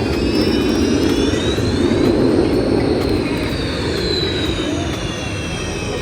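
Sukhoi Su-30 fighter jet flying past, its jet engines roaring with a whine that rises in pitch to a peak a little after the middle and then falls as the aircraft moves away.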